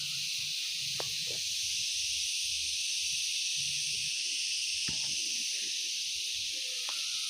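A steady high-pitched hiss runs throughout, with faint low murmuring and a few soft clicks beneath it.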